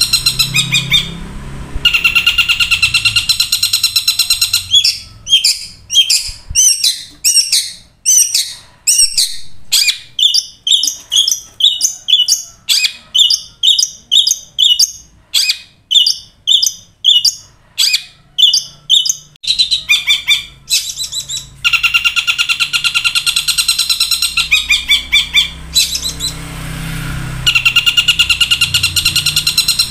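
Long-tailed shrike singing: harsh, buzzy rattling phrases at the start and again near the end, with a long run of short, sharp chirps at about two a second in between, some of them swooping quickly downward.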